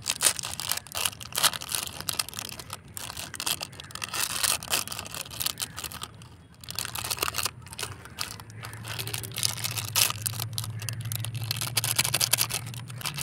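Thin clear plastic packets of rubber bands crinkling and tearing as they are opened by hand and the bands shaken out, an irregular run of rustles and small crackles.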